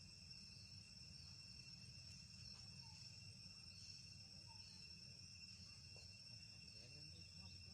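Faint, steady high-pitched drone of insects, with a low rumble underneath.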